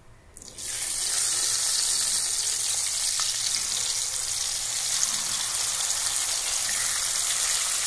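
Bele fish (tank goby) sizzling as they shallow-fry in hot oil in a kadai. A steady hiss starts up about half a second in and holds evenly.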